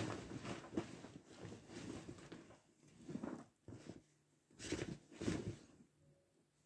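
Irregular rustling and knocking of things being handled, in several short bursts, the loudest two close together about two-thirds of the way through.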